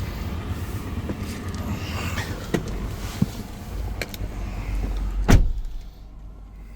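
Toyota 4Runner door swinging shut with a single loud thud about five seconds in, after a few small handling clicks; the background goes quieter once the door is closed.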